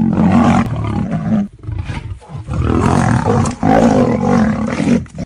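Big cat roaring in three long bouts with brief breaks, cutting off abruptly at the end.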